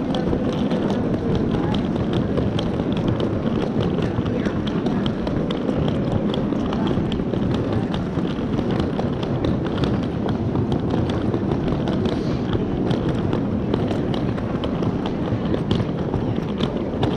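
Street ambience of a busy pedestrian shopping street: footsteps tapping on stone paving over a steady murmur of passers-by talking.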